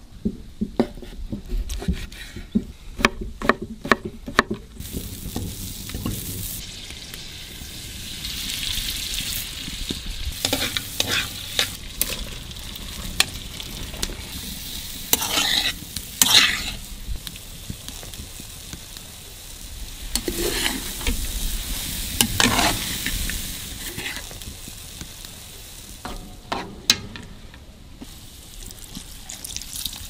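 Sliced wild mushrooms and vegetables sizzling in a frying pan, with louder scrapes of stirring now and then. The first few seconds hold a quick run of clicks and taps before the sizzling sets in.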